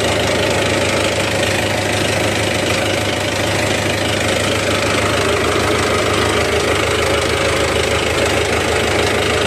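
MTZ tractor's diesel engine running steadily, as if at idle. The metallic rattle of the hood panels is gone: rubber blocks now pack the gaps where the sheet metal touched.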